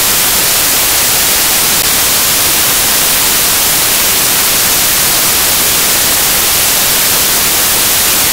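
Loud, steady hiss of white-noise static, even and without any tone or rhythm, cutting off suddenly at the end.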